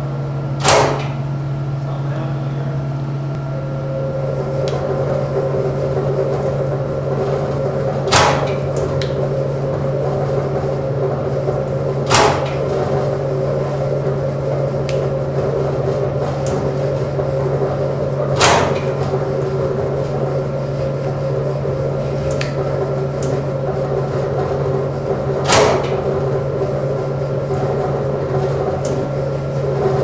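Hydraulic shake table running with a steady machine hum, a higher tone joining a few seconds in. Five sharp clunks ring out several seconds apart.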